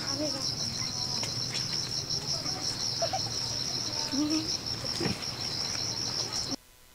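Steady high-pitched chirring of insects, which cuts off abruptly near the end.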